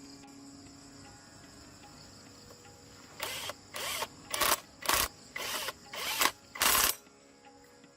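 A tool working on the tractor: a run of about seven short, sharp mechanical bursts roughly half a second apart, starting about three seconds in, over a faint steady background of insects.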